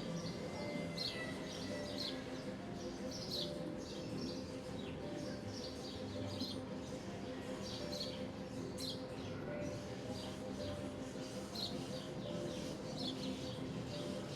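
House sparrows chirping: many short, repeated chirps, over a low steady hum.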